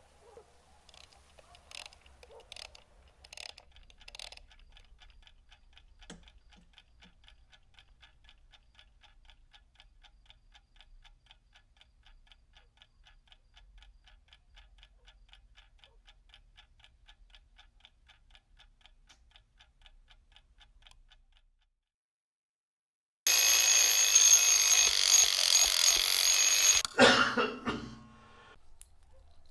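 A clock ticking faintly and steadily, then after a moment of silence an alarm clock rings loudly for about four seconds and is cut off abruptly.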